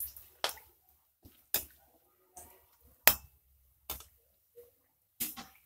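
A slotted metal spatula knocking and clinking against an iron wok as it turns pakodas in hot oil: about seven sharp knocks at uneven intervals, the loudest about three seconds in.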